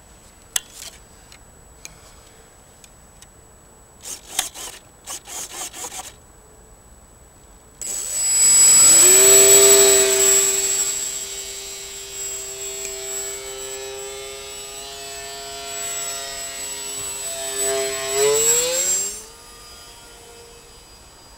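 Electric motor and pusher propeller of a radio-control Batplane flying wing running up to full power about a third of the way in for a hand launch: a sudden, loud buzzing whine with a thin high tone, which then holds steady as the plane climbs away. Near the end the pitch rises briefly and the motor cuts off suddenly. A few short rattling bursts come earlier, before the motor starts.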